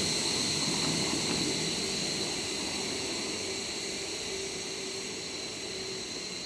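Compressed air venting from the air-brake system of a standing rail-carrying freight train of chiki flatcars hauled by an EF65 electric locomotive. It is a loud, steady hiss that starts suddenly and slowly dies away.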